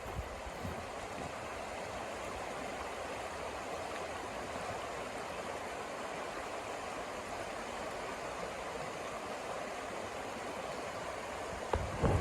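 Steady rushing of snowstorm wind, with gusts rumbling on the microphone at the start and a couple of knocks near the end.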